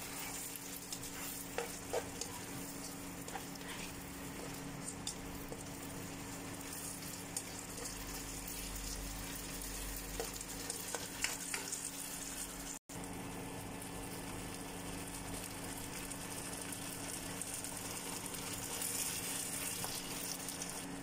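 Frog pieces sizzling as they stir-fry in a nonstick wok, with a spatula scraping and tapping against the pan now and then. The sound drops out for an instant a little past halfway.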